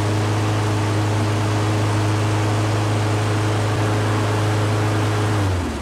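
Craftsman push mower's single-cylinder engine running steadily, then shut off near the end, its pitch dropping as it winds down.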